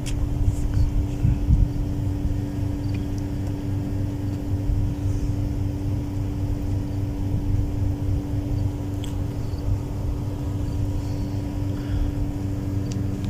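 Steady machine hum with a constant drone, over an uneven low rumble.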